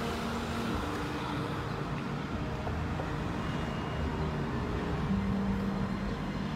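Steady hum of road traffic, with a low engine drone coming in near the end.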